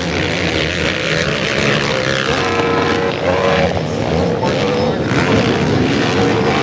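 Several racing quads (ATVs) on a motocross track, their engines revving, with the pitch rising and falling as the riders take off over jumps and land.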